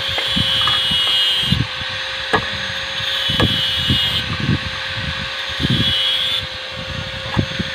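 Steel rebar being bent by hand into stirrups with a hand bending bar on a nailed wooden jig: scattered sharp metal clicks and clinks, with low knocks of the bar against the wood.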